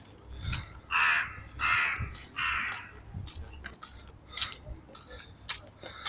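A crow cawing three times in quick succession, harsh and drawn-out calls, followed by a few light taps.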